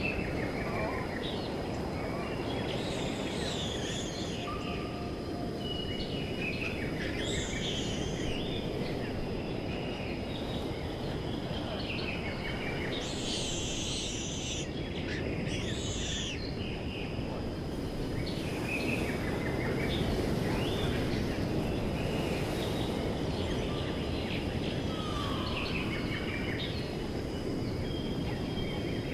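Several wild birds chirping and calling, short trills and whistles scattered throughout, over a steady rushing background noise and a thin, steady high tone.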